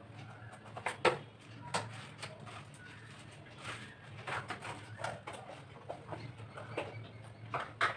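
Food containers being moved about on refrigerator shelves: scattered knocks and clinks, a few sharper ones, over a faint steady low hum.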